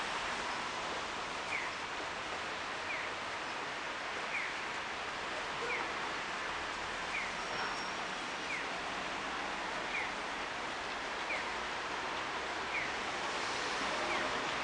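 Steady outdoor hiss, with a faint short falling chirp repeating evenly about every second and a half.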